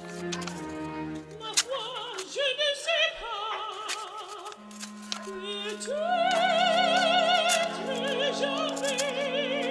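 Background music: an operatic voice singing with strong vibrato over a classical accompaniment.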